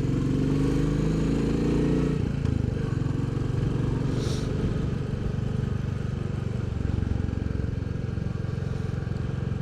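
Royal Enfield Bullet 350's single-cylinder engine and exhaust running on the move, heard from the bike. The engine note eases a little about two seconds in, and there is a brief hiss near the four-second mark.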